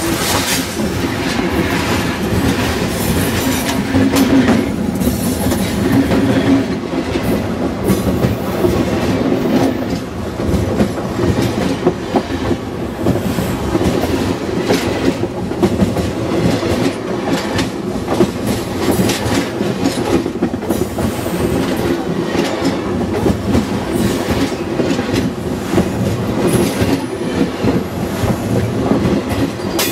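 Steam train of Union Pacific 844, a 4-8-4 locomotive and its cars, rolling directly over the microphone: a loud, steady rumble of wheels and undercarriage with a constant run of clicks and clanks from the wheels on the rails.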